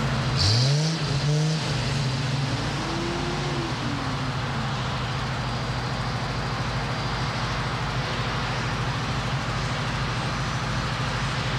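Airport engine noise: a steady low hum under a wide roar, with an engine rising in pitch about half a second in and a second higher rise and fall a couple of seconds later.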